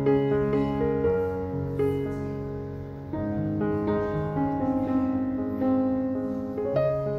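Background music: a gentle piano piece, notes held and changing about every half second.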